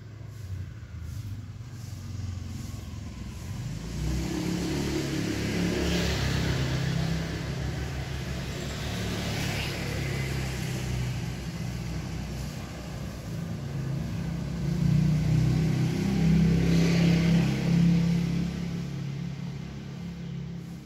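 Engine noise of passing road traffic, swelling about four seconds in, swelling again more loudly about fifteen seconds in, then fading.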